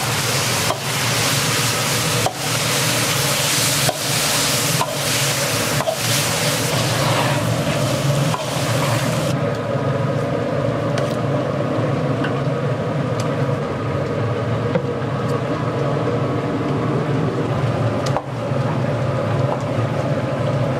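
Minced meat and chopped scallions sizzling in a large steel wok, with a metal ladle scraping and knocking against the pan as it is stirred. The sizzle's hiss cuts off abruptly about nine seconds in, leaving a steady low kitchen roar and occasional ladle knocks.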